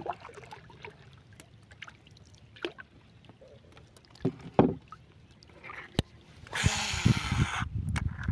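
Small clicks and knocks of fishing tackle, then about seven seconds in a loud one-second hiss of line running off a baitcasting reel's spool as a lure is cast, followed by low knocking.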